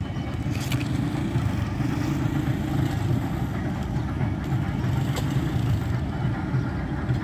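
Diesel-electric locomotive engine idling: a steady, low pulsing rumble.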